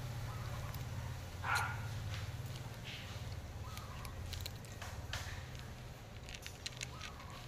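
Cats eating dry kibble from plates, with scattered short crunching clicks over a steady low background rumble. A brief louder sound comes about a second and a half in.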